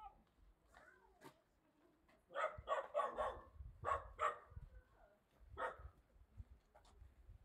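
A dog barking faintly: a quick run of short barks starting about two seconds in, then a single bark near the end.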